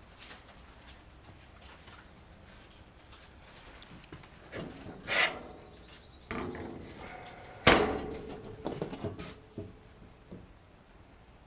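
Objects being handled and knocked against each other, with a sharp knock about three-quarters of the way in that rings briefly.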